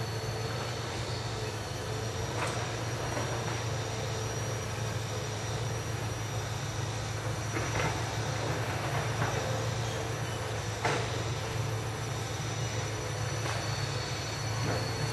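Hitachi EX200 hydraulic excavator working at a distance: its diesel engine drones steadily, with a few short sharp knocks and squeals from the machine and the timber it is clearing.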